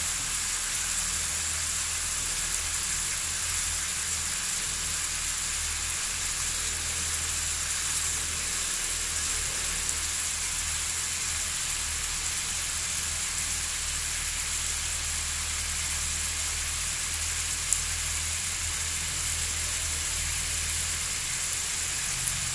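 Pork-stuffed squid shallow-frying in hot oil in a pan: a steady, dense sizzle of bubbling oil as the pieces cook toward golden.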